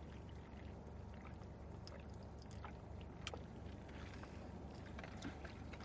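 Faint eating sounds: soft, scattered mouth clicks and chewing over a low steady hum.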